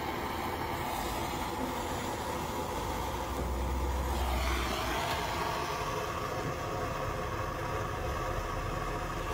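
Handheld gas blowtorch running steadily with a continuous rushing hiss, its flame held to wadded paper under a charcoal chimney starter to light it.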